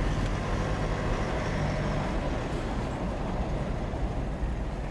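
Steady engine and tyre rumble heard inside the cabin of a patrol car driving along a dirt road.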